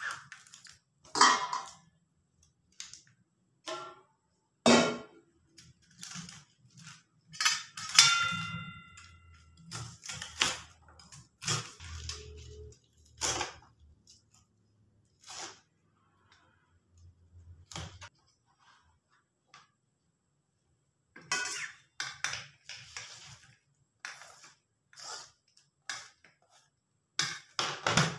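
Kitchen knife cutting pak choy on a plastic cutting board, in irregular knocks, mixed with stainless-steel bowls and plates clinking. One metal dish rings out with a clear ding about eight seconds in.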